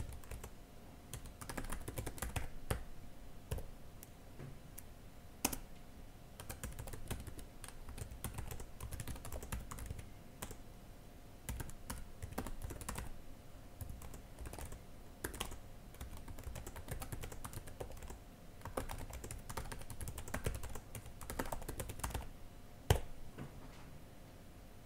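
Typing on a computer keyboard: irregular runs of key clicks broken by short pauses, with a couple of louder single keystrokes.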